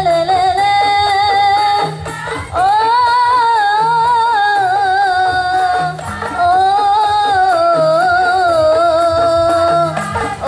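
Qasidah music: a woman sings long, high held notes through a PA system over rebana frame-drum accompaniment. She sings in three long phrases with short breaths between them, and her high voice stays steady.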